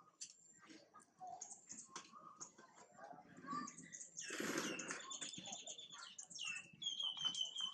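Small birds chirping, with a run of quick repeated whistled notes near the end. About four seconds in there is a short rustling crunch, the loudest sound.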